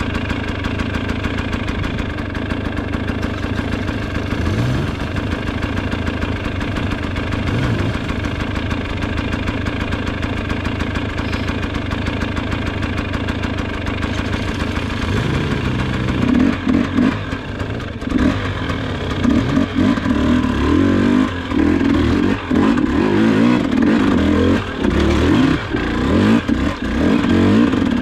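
A machine or motor running steadily, then from about halfway through running rougher and unevenly, with louder pulses and clatter.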